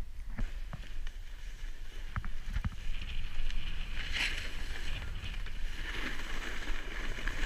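Wind rumbling on the camera microphone with a few faint clicks, then from about three seconds in the hiss of a snowboard sliding and scraping over snow.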